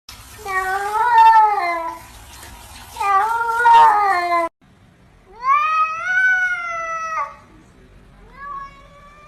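Domestic cats meowing: four long, drawn-out meows, the third sliding upward in pitch and the last one shorter and quieter. The sound cuts off abruptly about halfway through before the next meows.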